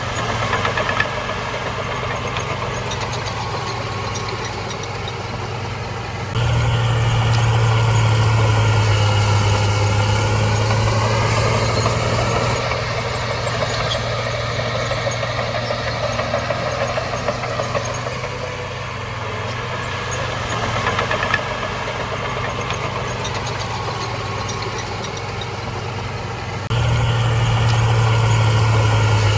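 Heavy diesel engine of earthmoving machinery running steadily under load, a deep drone whose pitch wavers. It jumps abruptly louder about six seconds in and again near the end.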